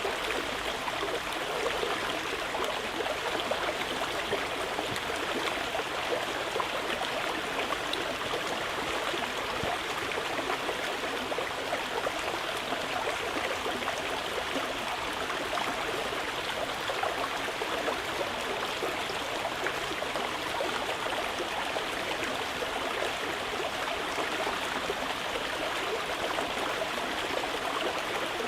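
Mountain river flowing with a steady rushing sound.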